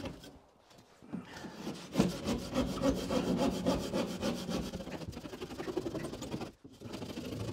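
Handsaw cutting through plasterboard in back-and-forth strokes, the blade run down the side of a timber stud to cut out a window opening. The sawing starts about two seconds in and breaks off briefly near the end.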